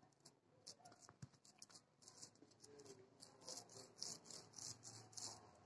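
Faint, soft rubbing strokes of a palm kneading fresh chhena against a steel plate, a few strokes a second, coming thicker and a little louder from about halfway; the chhena is being worked smooth for rasgulla.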